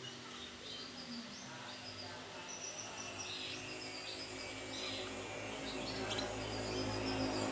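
Canary chirping in short, repeated high calls over background noise, with a low hum growing louder in the second half.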